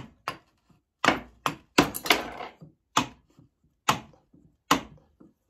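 A mallet strikes a sterling silver ring on a steel ring mandrel about ten times, in sharp knocks at an uneven pace of roughly two a second. The ring is being hammered back to round after soldering its seam.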